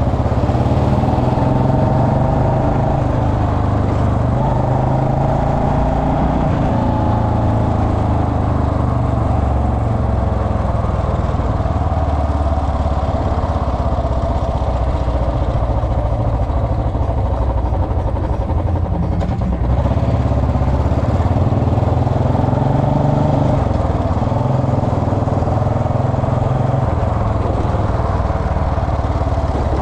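Royal Enfield Bullet Electra's single-cylinder engine running steadily, its pitch drifting up and down a little with the throttle.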